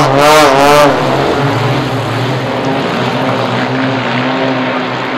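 Propeller-driven aerobatic airplane flying past. Its engine note wavers for about a second, drops in pitch as it passes, then gradually fades.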